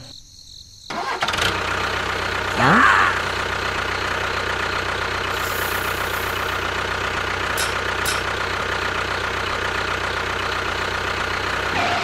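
Tractor engine starting about a second in and then running steadily, with a brief rising whine near three seconds.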